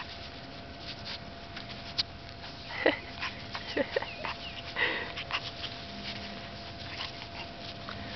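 Puppies sniffing and snuffling right at the microphone as they nose at the camera, with rustling in the grass and a few short, louder squeaky sounds around three and five seconds in.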